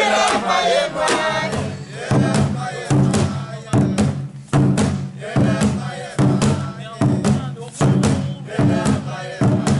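Voices shouting briefly at the start, then music with a steady drumbeat, a little more than one beat a second, under chanting voices.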